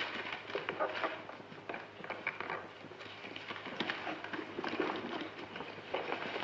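Irregular small knocks, clicks and rustling of papers and objects being handled as a desk is searched, scattered unevenly with no steady rhythm.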